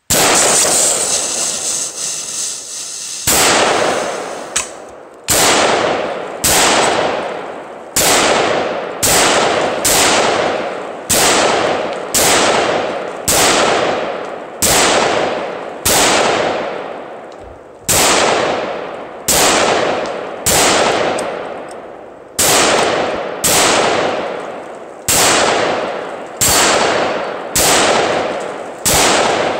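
A pressurised fire extinguisher bursting when hit, with a loud hiss of escaping gas for about three seconds. Then a steady string of about twenty semi-automatic shots from a Bushmaster XM15 QRC AR-15 in 5.56 mm, roughly one a second, each trailing off in a long echo.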